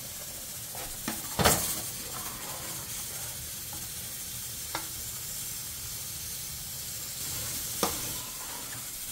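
Steady sizzling hiss from pots cooking on a gas stove, with a metal spoon clinking against a pot of boiling peas three times as they are stirred and checked, the first clink the loudest.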